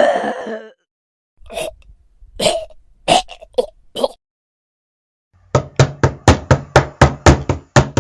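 A person coughing several times in short, irregular bursts, then a fast, even run of about a dozen sharp knocks, about five a second, over a low hum.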